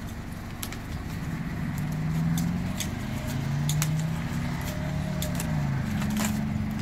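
Low engine-like hum whose pitch slides slowly down and up, loudest in the middle. Over it come scattered light clicks and rustling as the spinner's fabric, wire and rods are handled.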